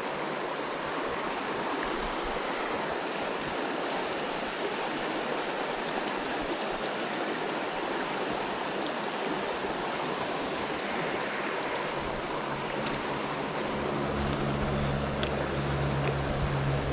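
River water flowing, a steady rushing noise. In the last few seconds a low engine hum rises underneath it.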